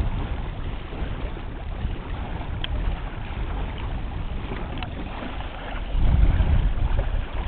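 Wind buffeting a small handheld camera microphone: an uneven low rumble that gets clearly stronger about six seconds in.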